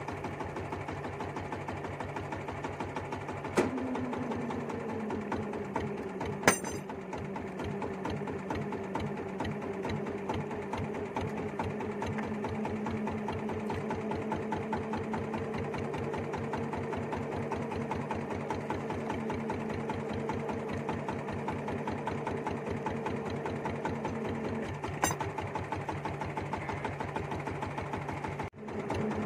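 Small boat's engine running at low speed with a fast, even beat, its pitch shifting slightly a few seconds in and again near the end. A few sharp knocks, the loudest about six seconds in.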